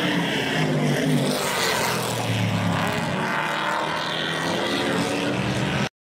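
Vintage race car engines running around the road course, their pitch rising and falling as the cars pass and change speed. The sound cuts off abruptly near the end.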